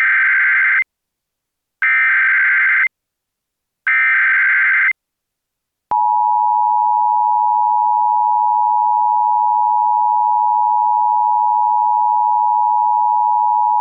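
Emergency Alert System header: three one-second blasts of SAME digital data, about a second apart. Then the steady two-tone EAS attention signal sounds for about eight seconds, the alarm that comes just before the alert message.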